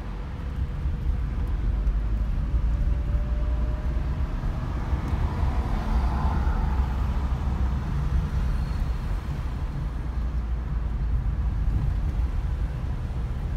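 Steady low rumble of a car's engine and tyres, heard from inside the moving car's cabin, with faint surrounding traffic.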